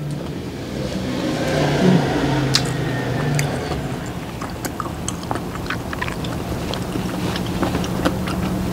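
A person chewing baby octopus: wet, sticky mouth smacks and many irregular clicks as the chewy meat is worked.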